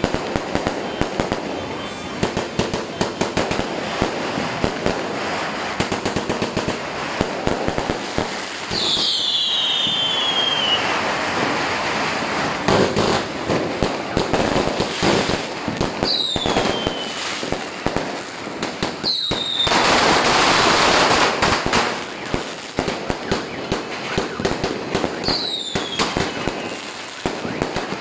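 Continuous fireworks: rapid bangs and crackling from firecrackers and aerial shells, with several whistling fireworks whose pitch falls away. A louder, dense hissing and crackling stretch comes about two-thirds of the way through.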